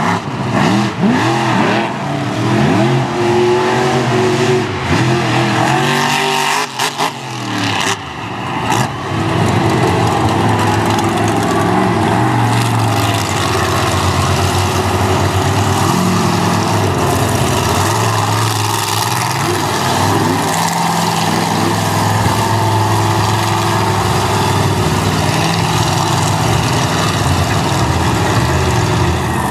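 Monster truck engine revving hard and running at high revs as the truck drives across a dirt arena, the revs rising and falling repeatedly in the first few seconds, then holding steadier.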